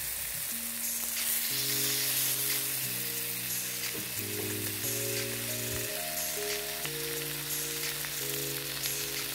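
Chicken-breast pieces sizzling in hot oil in a frying pan on medium-high heat, a steady high crackling hiss. Soft background music of held chords comes in about half a second in and runs under it.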